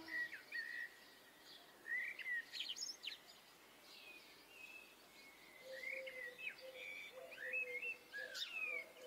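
Faint outdoor birdsong: scattered short chirps and quick rising and falling whistles from small birds, heard against quiet outdoor background noise. A low, broken note comes and goes in the second half.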